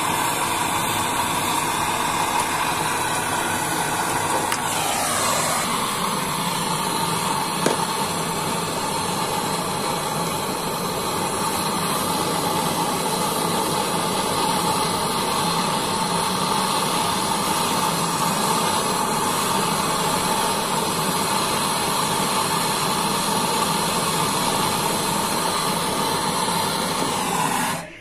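Gas brazing torch flame hissing steadily while the copper refrigerant pipes of a refrigerator are brazed.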